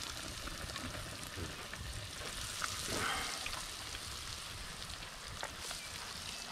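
Beer-battered haddock deep-frying in oil in a cast-iron Dutch oven over campfire coals: a steady sizzle with fine crackles, briefly louder about three seconds in.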